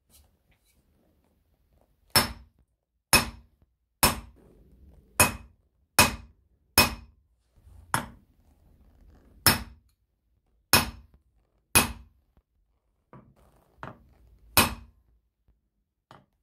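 Hammer striking a steel letter stamp to punch letters into a metal disc: about ten sharp metallic strikes, each with a brief ring, in uneven groups with pauses while the stamp is repositioned, plus a couple of lighter taps near the end.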